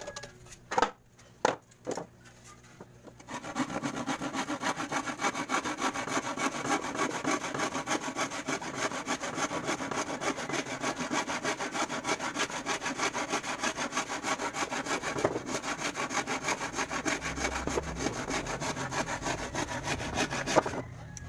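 A few sharp knocks, then from about three seconds in a hand saw cutting through plywood in quick, steady back-and-forth strokes. The strokes stop just before the end.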